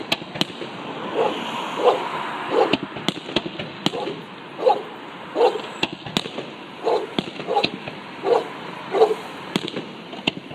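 Fireworks bangs and crackles, with a dog barking over them again and again in runs of short barks, about one bark every 0.7 seconds.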